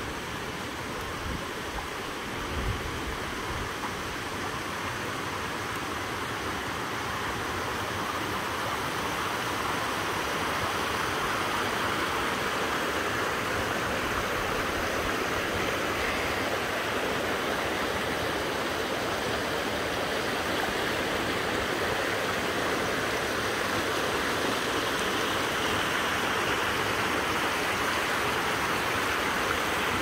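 River water rushing over rocks in a small cascade: a steady hiss of flowing water that grows gradually louder.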